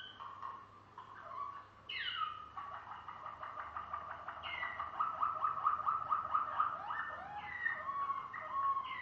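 Malinois (Waterslager) canary singing. A quick falling glide about two seconds in leads into a fast trill of rapidly repeated notes lasting about four seconds. Short whistled notes at changing pitches follow near the end.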